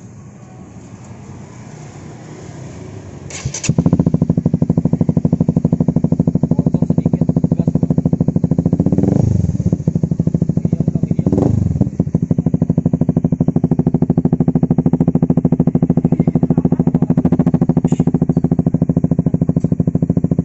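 Honda CBR150R single-cylinder four-stroke engine, breathing through a ProLiner KW replica slip-on muffler, is started about three and a half seconds in and then idles steadily. It is blipped twice in quick succession near the middle, each rev rising and falling back to idle.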